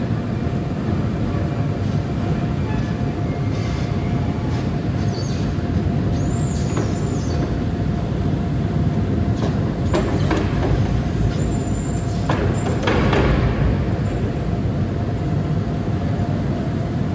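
A forklift handling a big-bag bin: steady mechanical rumble with a constant whine. Brief high squeaks come about six to seven seconds in, and a few sharp clunks about ten and thirteen seconds in, as the filled big bag is lowered onto a pallet and the forklift pulls away.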